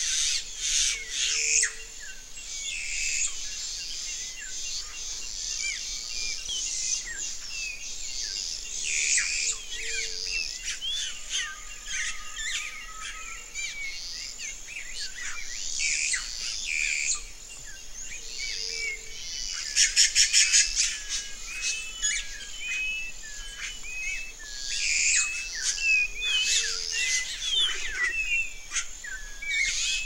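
A chorus of wild birds calling and singing, many short chirps and whistles overlapping. About twenty seconds in comes a rapid rattle, and a soft low note recurs every eight or nine seconds.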